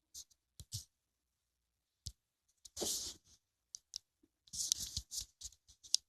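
Irregular clicks and two short rustling bursts of handling noise, about three and about five seconds in, as the recording device is handled.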